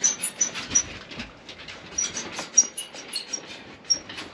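Wolf whining in a run of short, high-pitched squeaks, over the clicks and rattle of a wire-mesh cage gate being unlatched and opened.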